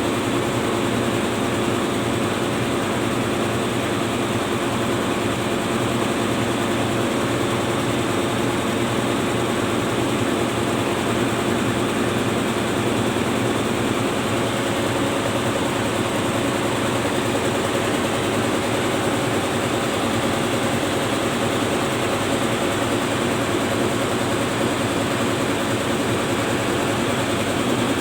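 A tugboat's twin main diesel engines running steadily at constant speed: an even, unchanging hum with several steady tones.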